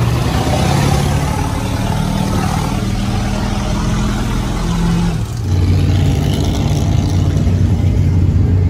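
Diesel pickup-based mud truck's engine running steadily. About five seconds in, the sound cuts to a deeper, steadier engine hum.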